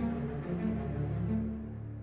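Orchestral soundtrack music with sustained low notes that change slowly, growing slightly quieter near the end.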